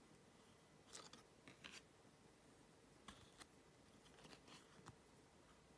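Faint rustles and flicks of Panini Adrenalyn XL trading cards being slid across one another by hand, in several short bursts.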